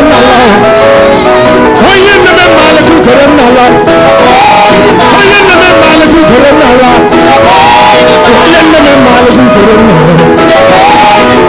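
Live gospel praise music: singing over a band, loud and continuous.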